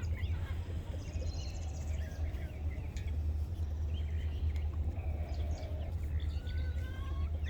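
Scattered faint bird chirps and short calls over a steady low rumble.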